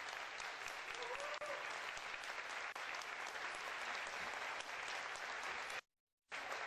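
Audience applauding steadily. The sound cuts out completely for a moment near the end.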